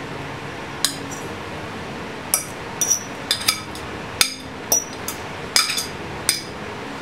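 A metal utensil knocking and scraping against a glass bowl: a series of sharp, ringing clinks at an uneven pace as cooked spinach is scraped out into a glass baking dish.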